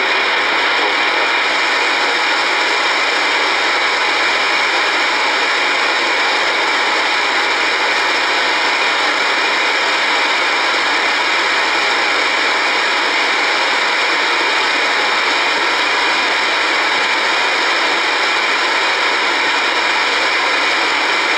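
Steady static hiss from an Icom communications receiver tuned to 119.900 MHz AM on the airband, squelch open with no transmission on the channel.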